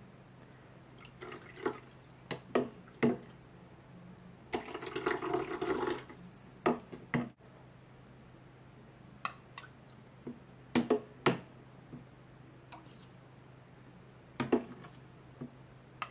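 Light plastic clicks and knocks of toy cookware being handled: a plastic ladle tapping and scraping in a small plastic saucepan and against a plastic bowl. About five seconds in there is a continuous scraping rattle lasting over a second, then more scattered single clicks.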